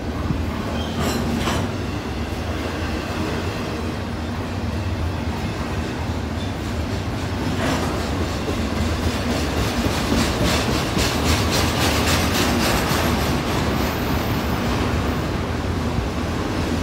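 Double-stack intermodal well cars rolling past: a steady rumble of wheels on rail, with rapid clicking and clatter over the rail joints that thickens in the second half.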